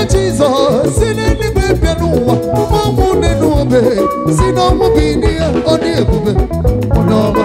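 Live band music: a drum kit keeping a steady beat under interlocking electric guitar lines and keyboard, playing an upbeat dance groove.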